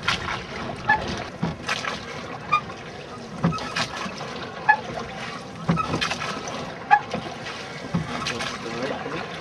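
Wooden rowing boat being rowed with oars: knocks and splashes of the strokes about once a second, with short creaks between them and water running along the hull.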